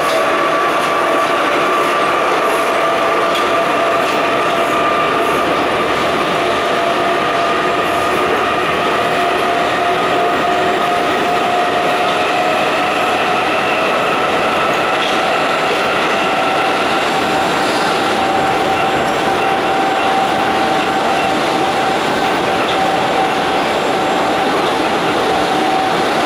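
Budapest Metro M3 train running, heard from inside the passenger car: steady rumble of wheels on rail with a motor whine that slowly rises in pitch as the train gathers speed.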